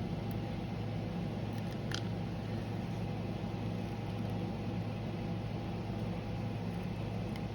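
A steady machine hum, even and unchanging, with a faint short click about two seconds in.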